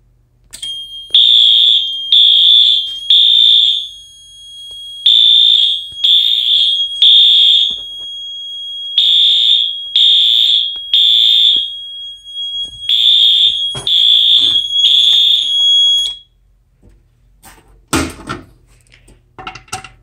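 Wheelock AS fire alarm horns sounding in the temporal-3 evacuation pattern: four rounds of three short, high-pitched horn blasts, each round followed by a pause, over a thinner steady tone of the same pitch. The alarm cuts off suddenly about sixteen seconds in.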